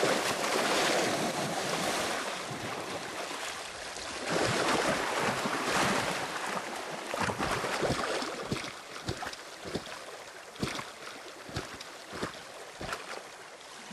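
Water splashing and churning as crocodiles thrash in the river fighting over a gazelle carcass. Two big surges of splashing come first, then a run of sharper, separate splashes and slaps.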